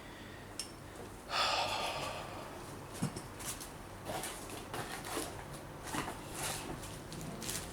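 A heavy exhale of about half a second, followed by small scattered clicks and rustles of parts being handled.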